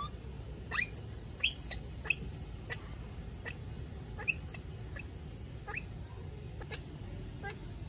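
Baby macaque giving short, high squeaks that slide upward, about two a second at irregular spacing: a frightened infant's distress cry.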